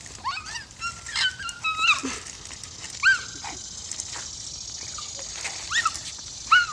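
A dog whining in short high-pitched cries: several in the first two seconds, another about three seconds in and one more near the end.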